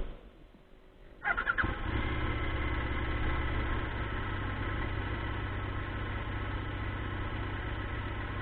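Motorcycle engine starting about a second in, with a brief starter whine as it catches, then settling into a steady idle.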